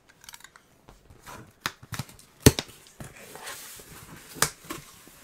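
Corrugated cardboard shipping box being opened by hand: scattered scrapes, clicks and rustles as the cut flaps are pulled apart, with a sharp click about two and a half seconds in and another near four and a half seconds.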